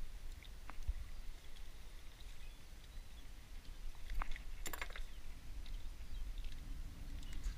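A few short clicks and taps from handling a small striped bass and its hook on a wooden dock, over a low steady rumble.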